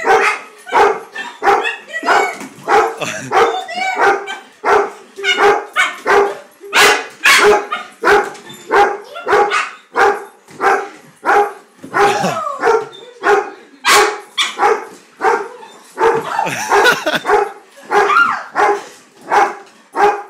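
A dog barking over and over in excitement for a frisbee held out of reach, about two sharp barks a second, with a short falling whine about halfway through.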